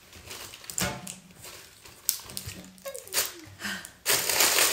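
A small Epsom leather Hermès Della Cavalleria mini handbag being handled as its metal flap clasp is undone and the flap lifted open: a few small clicks and leather rubbing, then a loud rustle of just under a second near the end.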